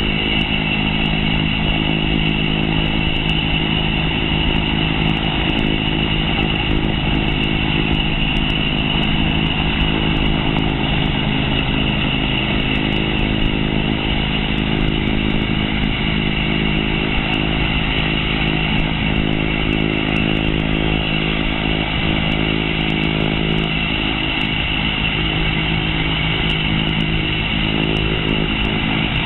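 Cessna 208 Caravan's Pratt & Whitney PT6A turboprop engine running steadily on the ground, a steady high turbine whine over a low propeller drone.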